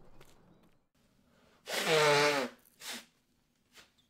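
A single loud vocal outburst from a person, about three quarters of a second long and falling in pitch, followed by a short breathy burst.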